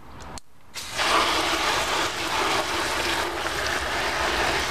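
Water spraying onto a plastic lunchbox to rinse off drain-cleaner gel; the steady rush of spray starts about a second in.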